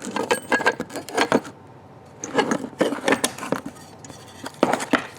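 Small metal parts clicking and clinking as they are handled: star washers and a metal mounting plate being fitted onto an air-ride control valve. The clicks come in uneven clusters, with a quieter gap about two seconds in.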